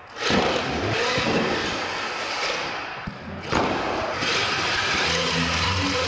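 Radio-controlled monster trucks driving and jumping, their electric motors whining. The sound changes abruptly twice, about a third of a second and three and a half seconds in, and a steady whine holds through the last second or so.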